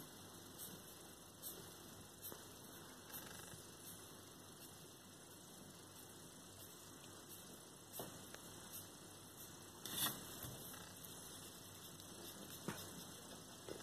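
Near-quiet room hum and hiss, with faint scratches and light ticks of a brush pen stroking across paper, and one sharper tap about ten seconds in.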